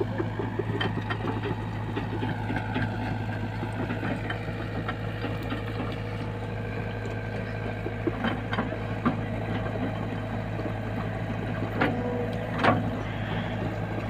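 SDLG crawler excavator's diesel engine running steadily while it digs, with a few sharp knocks in the second half, the loudest near the end.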